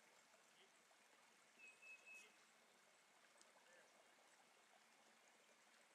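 Near silence: the faint steady rush of a small creek, with one short high whistled note about two seconds in.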